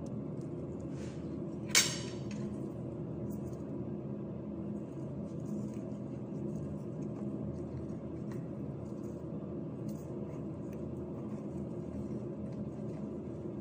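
Steady low hum of kitchen background noise, with one sharp clink, like a dish or glass being knocked, a little under two seconds in. Faint light rustles and ticks follow as plastic gloves are handled and a knife works on a squash.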